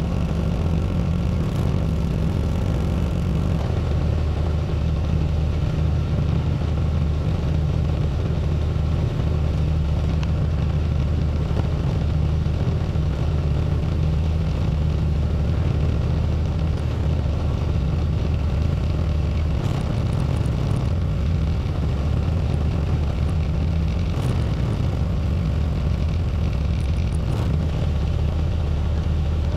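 Tractor engine running steadily, heard close up from a camera mounted on the tractor as it plows snow, with a few faint ticks late on.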